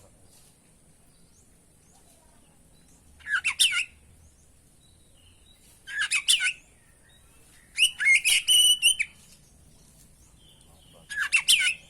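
Oriental magpie-robin (kacer) singing: four short bursts of quick, bending whistled phrases separated by pauses of a couple of seconds, the third phrase the longest.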